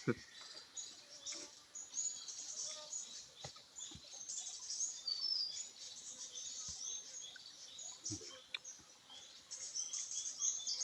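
Several small birds chirping and twittering steadily, with a few soft knocks or clicks scattered through.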